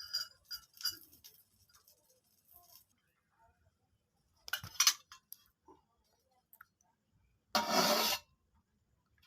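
Light clinks of dishes and cutlery, with a quick cluster of sharper clinks about halfway through, then a short rushing noise lasting about half a second near the end.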